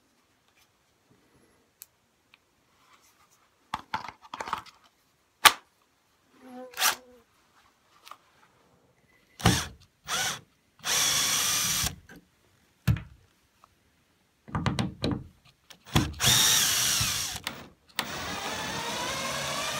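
Power drill backing screws out of a door's hinge plates and jamb, in several separate runs of the motor, the longest near the end, with the motor's pitch rising and falling in one run. Clicks and knocks of handling come between the runs.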